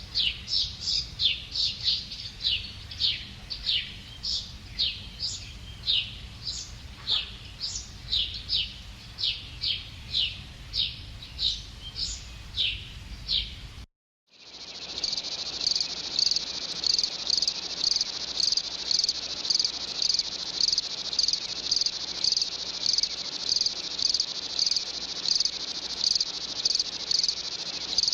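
A bird's repeated short chirps, each falling in pitch, about three a second. After a brief break about fourteen seconds in, crickets take over with a steady high trill that pulses evenly, roughly twice a second.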